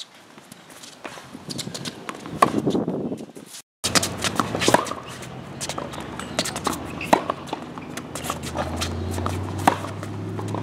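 Tennis balls struck by rackets and bouncing on a hard court during a rally drill, a string of sharp pops and knocks mixed with footsteps and shoe scuffs. The sound cuts out for a moment about four seconds in.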